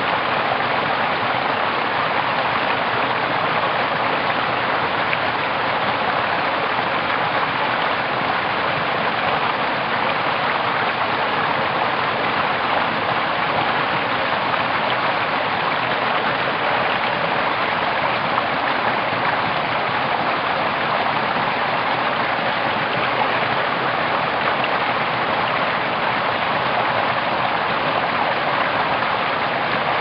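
Small mountain stream splashing steadily over rocks in a low cascade into a shallow pool.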